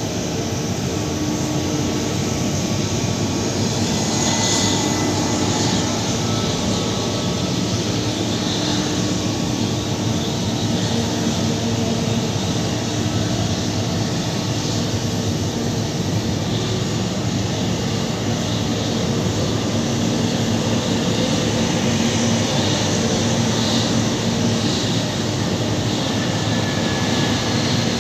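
Twin-engine jet airliner's engines running at low taxi thrust as the plane rolls and turns onto the runway: a steady rush with a low, even hum.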